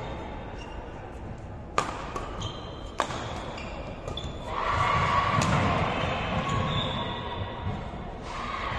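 A basketball bouncing on an indoor court: three sharp bounces, about two seconds in, three seconds in and halfway through, echoing in a large hall, with players' voices louder in the second half.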